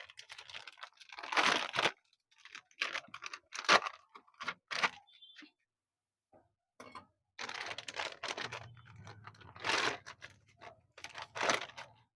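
Irregular clicks, scrapes and rustling as new motorcycle clutch plates and their packaging are handled. A low steady hum joins about seven seconds in.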